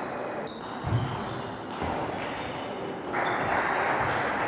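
Sports hall noise during a table tennis match, between rallies rather than during play. There is a dull thump about a second in and a few short high squeaks, and the general noise swells near the end.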